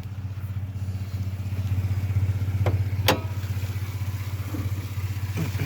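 Ford F-150's 2.7L twin-turbo EcoBoost V6 idling steadily through a Roush cat-back exhaust, with an even low pulsing. Two short sharp clicks come about midway, half a second apart.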